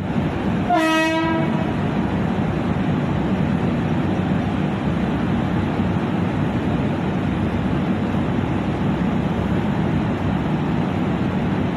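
A train horn sounds once, briefly, about a second in, over the loud, steady rumble of a moving Indian Railways passenger train.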